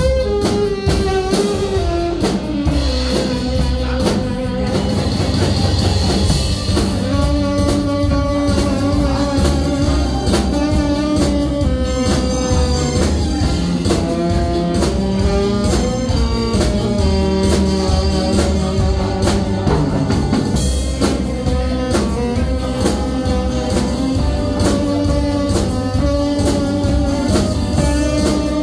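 Saxophone playing a slow Korean trot melody in long held notes with vibrato, accompanied by a drum kit keeping a steady beat.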